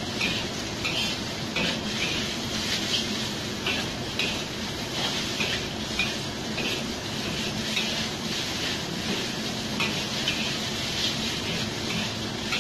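Metal spatula scraping and knocking against a wok as udon noodles are stir-fried, in repeated strokes roughly one to two a second, over a steady sizzle.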